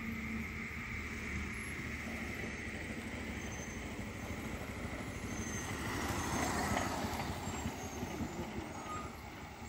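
Steady low engine rumble of a heavily loaded 14-tyre lorry working slowly round a hill-road bend. A motorcycle passes close by about two-thirds of the way through, rising and then fading away.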